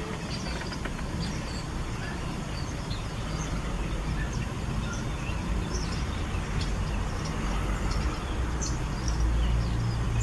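Outdoor background noise: a steady low rumble, swelling near the end, with scattered faint bird chirps.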